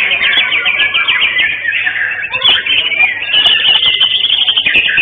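Several caged songbirds singing at once, a dense mix of rapid trills and whistles with no pause.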